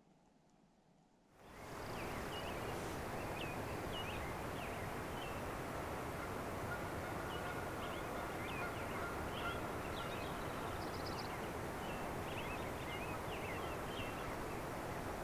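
After about a second of near silence, a steady, even rushing noise comes in suddenly. Many short bird chirps and calls are scattered over it, and a faint held tone sounds for a few seconds in the middle.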